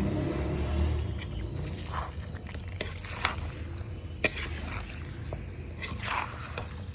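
Steel spatula stirring raw chicken pieces through masala in a metal kadai, scraping the pan with scattered sharp clinks against its side, the loudest about four seconds in.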